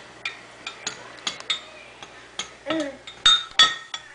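A small plastic spoon knocking against the inside of a glass measuring cup of water: a series of irregular clinks, the last two near the end the loudest, each with a brief glassy ring.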